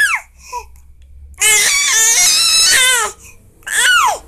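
Baby crying: a short falling wail at the start, a long wavering cry in the middle, and a short rising-then-falling wail near the end.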